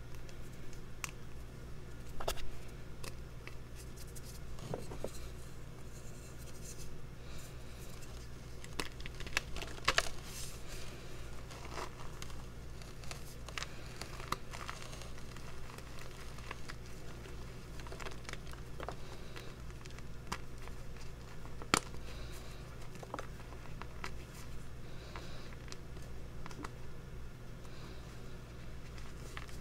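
Hands crushing and crumbling dry reformed gym chalk into powder: irregular crunching and crackling with a few sharper, louder snaps as pieces break, over a steady low hum.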